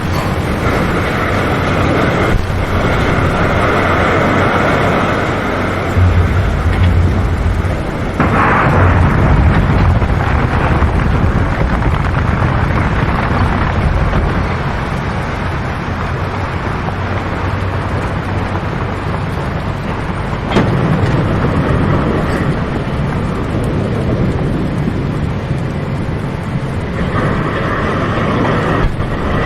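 Heavy machinery and vehicles rumbling in a dense layered industrial mix, with a harsher mid-pitched noise that fades out about halfway and comes back near the end.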